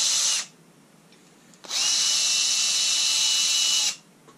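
Cordless drill-driver backing out the long screws that hold an LED lens assembly: one run stops about half a second in, then a second steady run of about two seconds follows. The motor whine winds up at its start and dips as it stops.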